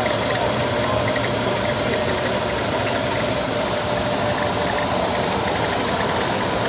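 Slitter-rewinder running steadily as a large roll of white web material winds on its slotted rewind shaft: an even mechanical running noise with a held mid-pitched whine.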